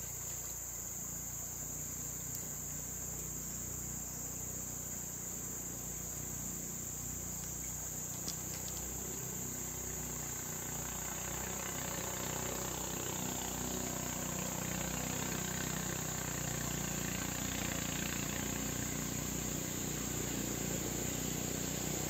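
Steady high-pitched chorus of rainforest insects, crickets or cicadas, droning without a break. A low rumble underneath grows a little louder about halfway through.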